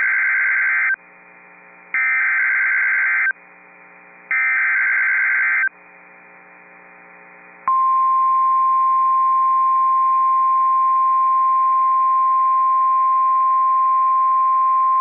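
Emergency Alert System SAME header: three harsh, buzzing bursts of digital data tones about a second apart, announcing a Severe Thunderstorm Warning. A couple of seconds later the long, steady, single-pitch National Weather Service attention tone begins.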